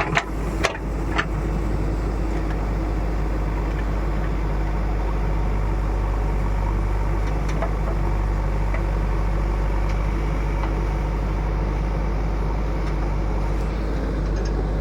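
Heavy diesel engine running steadily, with a low, even hum. A few sharp knocks come in the first second or so.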